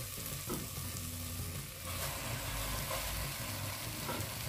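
A piece of seared beef and sliced onions sizzling steadily in the hot pressure cooker as the meat is lowered back into the pan.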